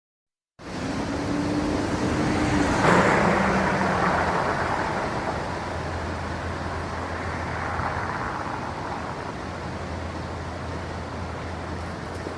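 Light city traffic ambience with a low, steady rumble, fading in about half a second in. A vehicle passes close around three seconds in, its engine note dropping in pitch as it goes by, and then the traffic settles to a steady wash.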